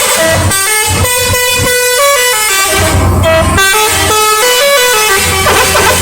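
Indonesian bus telolet horn playing a quick tune of stepped notes over the low steady hum of the bus engine.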